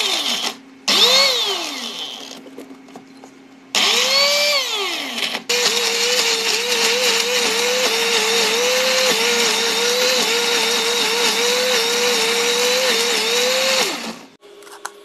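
Electric countertop blender (Trio) pulsed in short bursts, its motor whining up and spinning down each time, then run for about eight seconds with its pitch wavering. It is chopping a dry mix of chillies with no water added, and it is switched off near the end.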